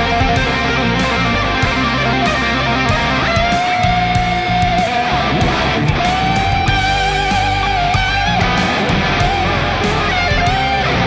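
Electric guitar played through a GFI System Orca delay pedal: long held lead notes with vibrato, carried on delay repeats, over sustained chords.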